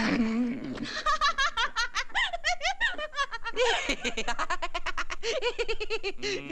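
Voices laughing, a quick run of short rising-and-falling ha-ha syllables.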